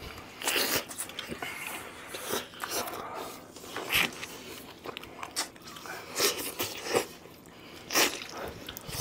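Close-up eating sounds of people gnawing braised chicken heads: irregular biting, chewing and small crunches, with brief clicks.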